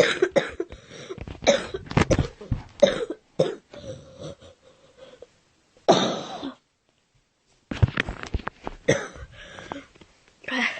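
A woman coughing in repeated runs of short coughs, one longer cough about six seconds in, then a pause of about a second before another run of coughs.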